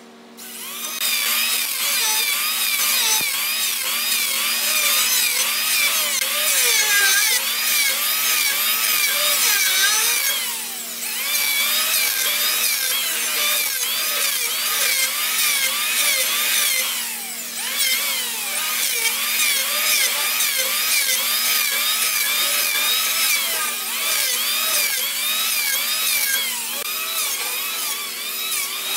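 Handheld electric planers shaving a red hardwood beam, the motors' pitch wavering up and down repeatedly as the blades bite, with a steady low hum underneath and two short lulls between passes.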